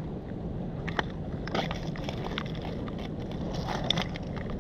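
Footsteps on a shingle and gravel river foreshore, a few irregular crunches, over a steady wind hiss on the microphone.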